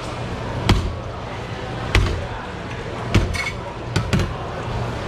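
Heavy fish knife striking through a red sea bream's head onto a plastic cutting board: sharp knocks about a second apart, the last two coming as quick pairs, over steady background noise.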